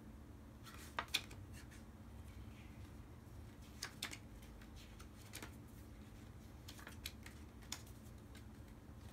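Scattered light clicks and taps of small dashcam kit parts being handled, about eight in all at irregular intervals, the loudest pair about a second in, over a faint steady room hum.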